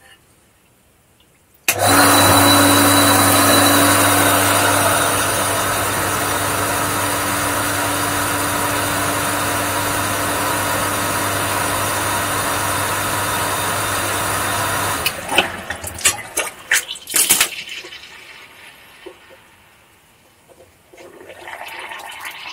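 Electric surface pumping station starts abruptly about two seconds in and runs with a steady motor hum under a loud rush of water and air, then cuts off suddenly after about thirteen seconds. The pump is priming and drawing air along with the water, which leaves the water frothy. A few clinks and knocks follow it.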